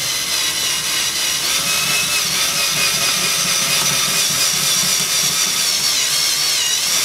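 Cordless drill running with a quarter-inch twist bit boring a hole through an accordion's frame: a steady motor whine that wavers and dips in pitch near the end as the bit bites.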